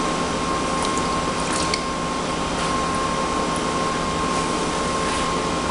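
Water sloshing and splashing in a hydrographic dip tank as gloved hands and a part move through it, over a steady machine noise with a thin, constant high tone.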